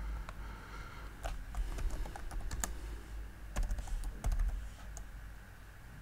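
Typing on a computer keyboard: irregular key clicks, with a few louder strokes a little past the middle.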